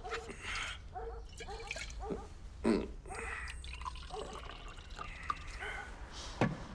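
Faint, scattered drips of liquid over a low steady hum.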